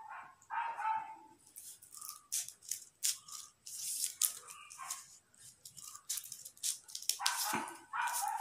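A dog barking in short bursts, about a second in and again near the end. In between are the crisp snips of scissors and the rustle of folded paper being cut.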